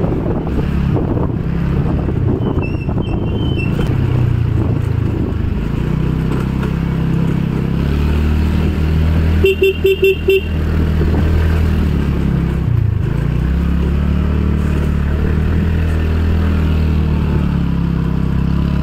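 Motorcycle engine running steadily under load on an uphill road; its note dips briefly and picks up again about two-thirds of the way through. About halfway through, the horn toots about five times in quick succession, as when warning at a blind bend.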